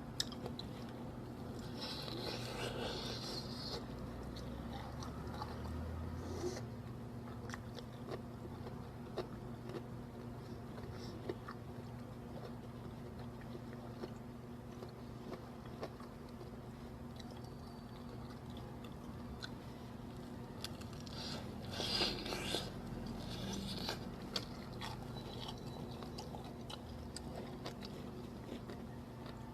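Close-miked biting and chewing of crunchy fried chicken: crisp crackles of the coating with scattered sharp crunches, louder bursts of crunching a few seconds in and again about two-thirds through.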